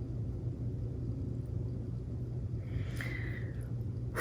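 Steady low background hum with no speech, and a faint soft rustle about three seconds in.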